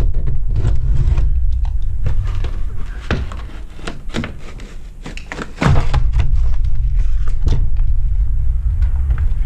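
Utility knife cutting through ceiling drywall in a run of short rasping strokes, over a steady low rumble that drops away for a couple of seconds midway.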